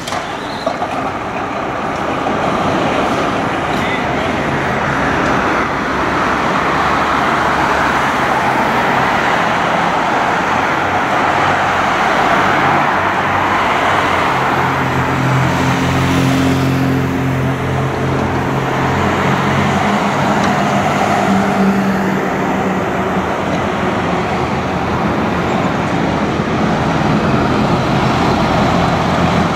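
Steady road traffic, cars passing on the street with tyre and engine noise. A heavier vehicle engine drones over it for about ten seconds midway.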